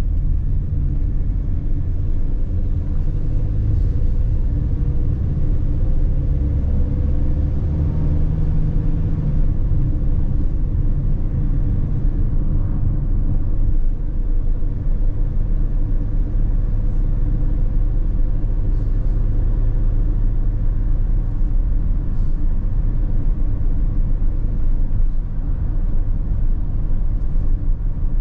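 Inside a Mercedes-Benz Sprinter van's cab while driving: a steady, deep rumble of engine and tyre noise at road speed, with a faint rising whine in the first several seconds as the van picks up speed.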